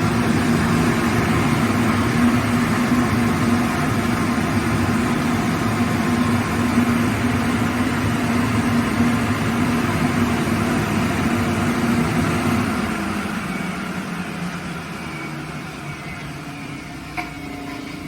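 CECCATO 30 kW rotary screw air compressor (electric motor driving an Atlas Copco air end) running steadily with a strong hum. About two-thirds of the way through it shuts down and winds down, growing quieter, with a single click near the end.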